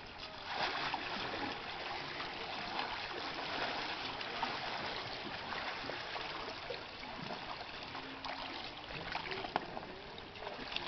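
Pool water lapping and trickling, with light splashes, as an inflatable air mattress is paddled by hand.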